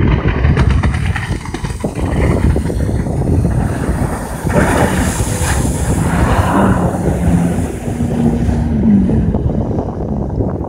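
Wind buffeting the microphone over the low drone of a jet ski. The water spray hisses loudly about four and a half seconds in, as the jet ski turns hard close by. Its engine then holds a steady tone for a few seconds, rising slightly before fading.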